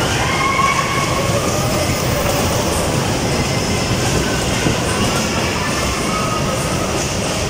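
Amusement park ride running with riders aboard: a steady, loud rumble of the ride moving on its track, with faint high squeals coming and going.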